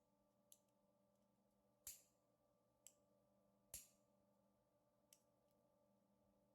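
Near silence: a faint steady hum with five short, sharp clicks, the loudest about two and four seconds in.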